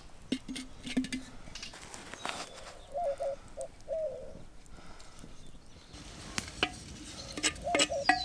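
Scattered clicks and knocks of a wooden spoon and a small clay bowl against an unglazed earthenware cooking pot as bacon goes in and is stirred. A bird calls in the background in two short bouts, about three seconds in and again near the end.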